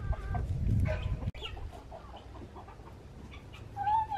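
Backyard chickens clucking, with short calls early on and one drawn-out, steady call near the end. Rumbling handling noise on the microphone in the first second.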